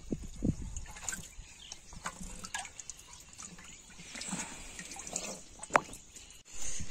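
Water sloshing and dripping in a plastic drum as a hand gropes among large live fish and lifts one out, with small splashes and one sharp knock near the end.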